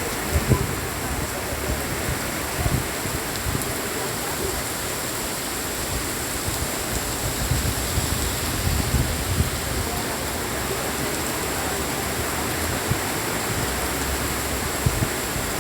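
Steady heavy rain, an even hiss, with a few short low thumps scattered through it.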